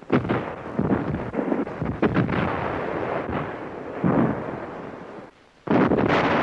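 Artillery fire on an old newsreel soundtrack: a dense rumble of gunfire with several sharp blasts, dropping out briefly about five seconds in before the firing starts again.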